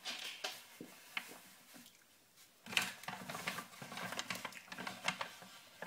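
Hands handling and rustling a pack of hair bobbles and other shopping items, a string of small crackles and clicks; it goes almost quiet about two seconds in, then the crackling picks up and runs on busier.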